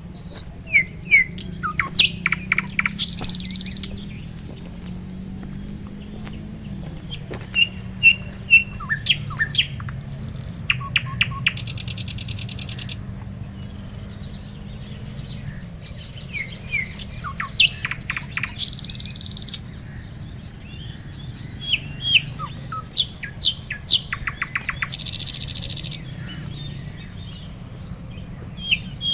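Several birds chirping and calling in quick short notes, with a rapid, high, buzzy trill breaking in every few seconds, over a steady low background rumble.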